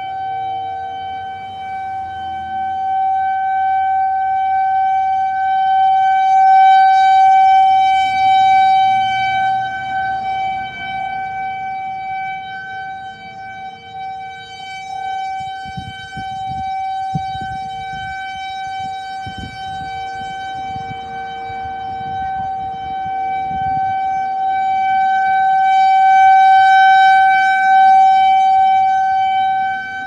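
Whelen WPS 4004 electronic outdoor warning siren sounding a steady, unwavering alert tone during a siren test. The rotating horn sweeps toward and away, so the tone swells and fades slowly, loudest about a quarter of the way in and again near the end.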